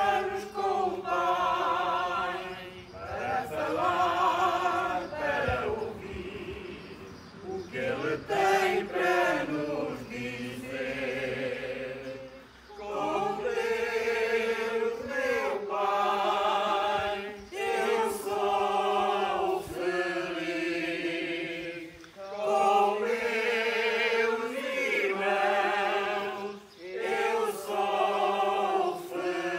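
A small congregation singing the entrance hymn that opens a Catholic Mass, in held phrases of about two seconds with short breaks between them.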